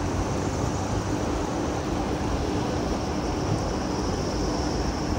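Floodwater rushing fast across a roadway: a steady, unbroken rushing noise with a faint steady low hum beneath it.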